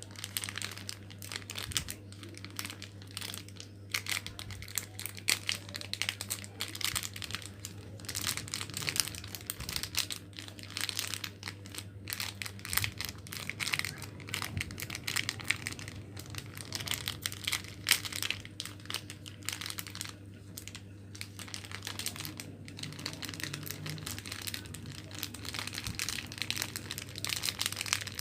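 Plastic-foil coffee sachet wrappers crinkling and rustling in irregular bursts as they are folded and woven by hand into a bag, over a steady low hum.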